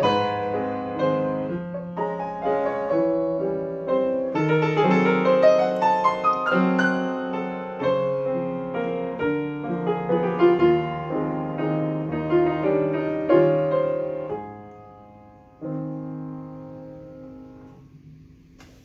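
Upright piano playing the closing bars of a waltz (valse). The playing dies away about fourteen seconds in, then a last, quieter chord is struck and left to ring out.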